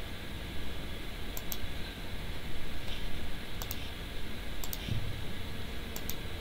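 Computer mouse clicking: four quick double clicks spread through, over a faint steady hiss.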